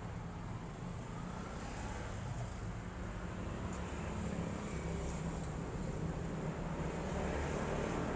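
Steady low rumble of road traffic, growing gradually louder.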